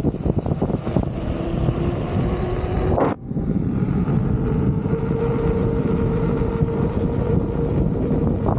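Strong wind buffeting the microphone over the rumble of a Begode EX30 electric unicycle rolling on brick paving, with a faint steady hum from its hub motor. The sound drops out for a moment about three seconds in and resumes with the hum a little higher.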